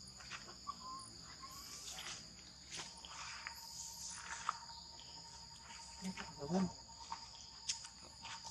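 Steady insect chorus in the forest, a high-pitched drone holding two even tones throughout, with scattered light clicks and rustles. A short low voice-like grunt about six and a half seconds in is the loudest moment.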